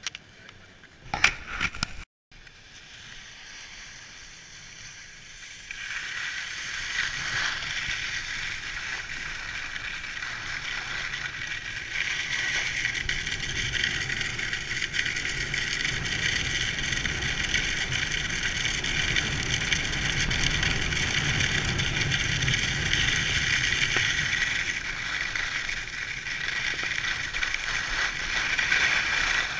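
Skis sliding and scraping over groomed, hard-packed snow at speed: a steady hiss that gets louder about six seconds in and again a few seconds later, with a low wind rumble on the microphone. A few sharp clicks come in the first two seconds, before the sound cuts out abruptly.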